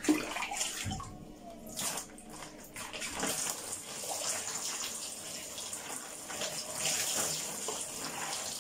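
Water running and splashing as wet hair is rinsed under it, with a soft knock about a second in.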